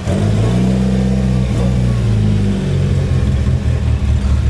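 Mitsubishi Lancer Evolution VIII's turbocharged four-cylinder engine running and being revved, its note holding for a moment, then stepping up or down.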